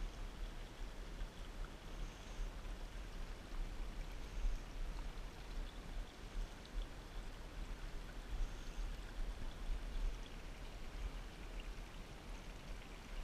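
Small woodland creek trickling and splashing over rocks in a shallow riffle, a steady even rush of water with a low rumble underneath.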